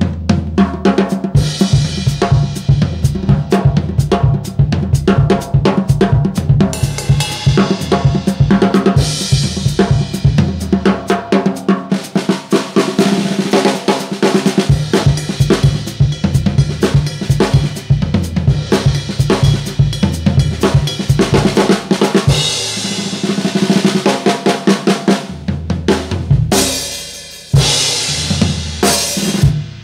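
Slingerland chrome-over-brass 14x5 snare drum played with sticks in fast grooves and rolls on a drum kit, with bass drum and cymbals. Bright cymbal crashes come in at several points, and the playing ends on one near the end.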